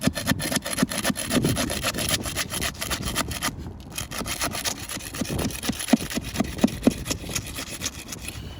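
Steel flat bar scraping and prying along the sealant strip of asphalt roof shingles, a rapid rasping scrape with a few short squeaks about five to seven seconds in. The tabs are stuck fast and do not want to unseal.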